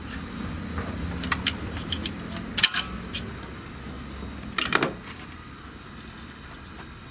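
Metal hand tools and small engine parts clinking during work on an engine's timing-belt end. There are a few sharp metallic clinks, with the loudest about two and a half seconds in and again at four and a half seconds, over a low steady hum.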